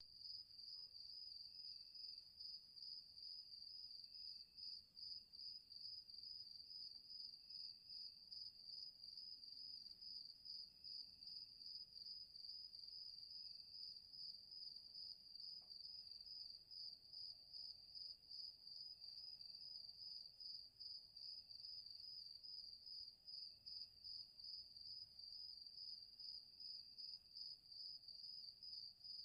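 Crickets chirping: a steady, high, rapidly pulsing trill, with a fainter lower chirp repeating every couple of seconds.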